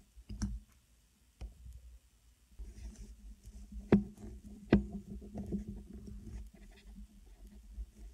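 Small hand-work sounds of building a coil on a vape tank's rebuildable deck: light taps and clicks of tools and wire against the metal deck, with two sharper clicks about four and five seconds in, over low rubbing and handling noise in the second half.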